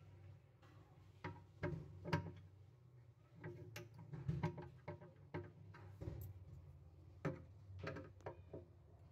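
Screwdriver working the adjustment screws of a steel concealed cup hinge on a cabinet door: about a dozen sharp metal clicks and ticks at uneven intervals, some with a short ring.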